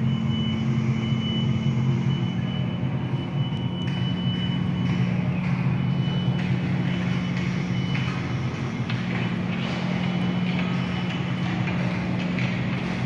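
A steady low droning hum of several pitches, with a thin high tone over it for about the first half and faint clicks in the later part.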